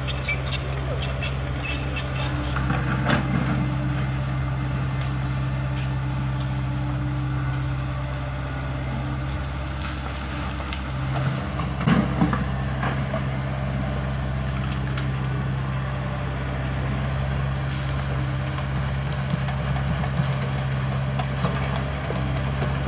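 CAT 307E mini excavator's diesel engine running steadily under load while it digs. A few clunks and scrapes of stones against the steel bucket come through, the loudest about twelve seconds in.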